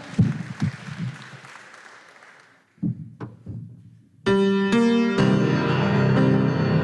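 Crowd noise dies away, a couple of soft knocks follow, then a grand piano strikes two separate chords about four seconds in and goes straight into dense, continuous playing.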